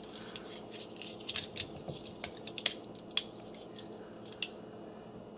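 Plastic Transformers action figure (Twin Twist) being handled and transformed: a scatter of small clicks and snaps as its hard plastic parts and joints are twisted and pressed into place, over a faint steady room hum.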